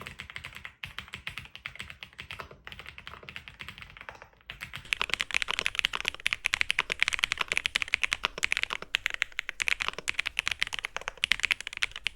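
Mechanical keyboard fitted with Akko Cream Yellow V3 linear switches being typed on, a quick run of clacking keystrokes. The typing is lighter for the first few seconds, then becomes louder and faster from about four and a half seconds in.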